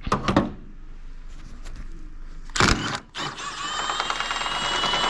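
A brief clatter about halfway through, then a cordless power tool running for about two and a half seconds with a steady whine over a rapid rattle, spinning out a 15 mm engine-mount bolt.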